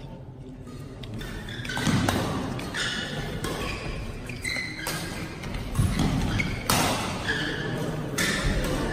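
Doubles badminton rally: rackets striking the shuttlecock in a fast exchange, a sharp crack about every second, with players' feet thudding on the court floor between hits.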